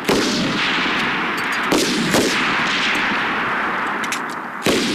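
M249 light machine guns firing on a range: four sharp reports, the first right at the start, two close together a little under two seconds later and one near the end, with a long rolling echo filling the gaps between them.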